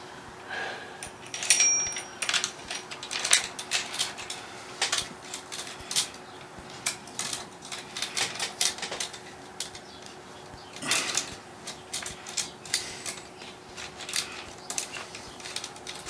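Hands handling small hard parts and packaging: irregular clicks, taps and rattles, with a short rustle near the middle.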